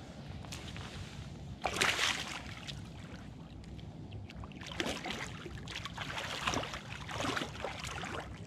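Big blue catfish splashing and thrashing in shallow water as it swims off after release, in several short bursts. The loudest splash comes about two seconds in.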